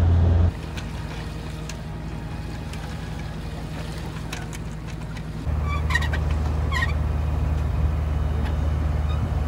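A sailing yacht's inboard engine running steadily, a low hum that drops in level about half a second in and comes back louder midway. Two short high calls sound over it about six and seven seconds in.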